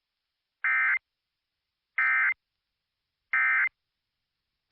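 Emergency Alert System end-of-message code on NOAA Weather Radio: three short, identical bursts of buzzing digital data tones about a second and a half apart, signalling that the alert broadcast is over.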